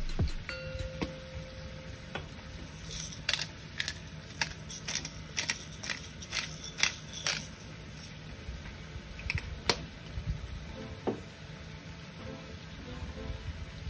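Hand-twisted pepper grinder cracking peppercorns: a run of sharp gritty clicks over about four seconds, then a couple more a few seconds later. Under it, a sauce simmers faintly in the pan.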